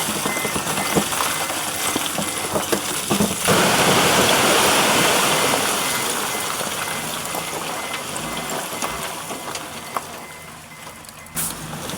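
Bulldozer working stone: its diesel engine runs under a steady clatter of knocking rock. About three and a half seconds in a loud rush of sliding stone and gravel sets in, then slowly dies away.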